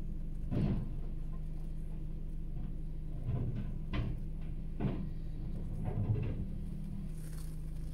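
A rear-loading garbage truck's bin lifter empties a plastic wheelie bin and sets it back down, giving several dull knocks and bangs over a steady low engine hum. The first knock, as the bin is shaken out at the top, is the loudest.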